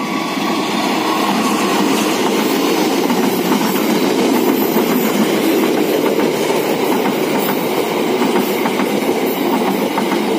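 A diesel-hauled passenger train with stainless-steel coaches passing close by: a steady loud rumble of wheels on rail, with rapid clattering over the rail joints. It swells over the first second as the locomotive comes past, then holds steady as the coaches roll by.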